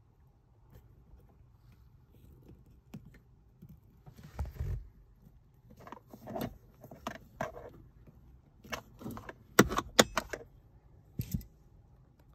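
Handling clicks, knocks and rattles of metal locking pliers and the heater blower resistor's plastic housing as it is worked loose. After a low thump about four seconds in comes a run of sharp clicks, loudest just before ten seconds in.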